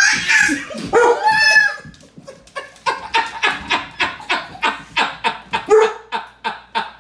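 Small children's voices: a sudden loud scream, then a run of short, evenly repeated squeals at about four a second.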